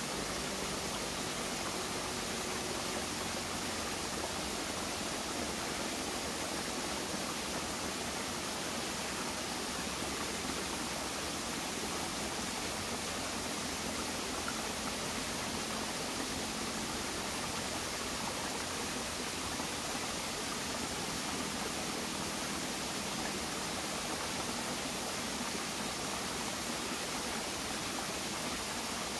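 Small rocky stream running steadily over stones and a low cascade, an even rush of water.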